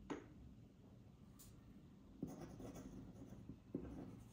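Metal nib of a feather quill dip pen scratching across paper in short, irregular strokes as words are written. A light click just after the start comes as the pen is dipped in the inkwell.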